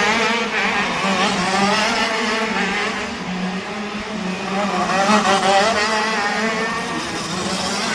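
Racing kart engine running hard as the kart drives past, its pitch dipping and rising again several times as the throttle comes off and on. It is loudest about five seconds in.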